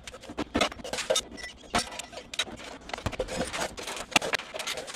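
Metal engine parts and tools being handled during reassembly of an air-cooled VW Type 1 engine's top end: irregular clinks, clicks and scrapes, with no steady running sound.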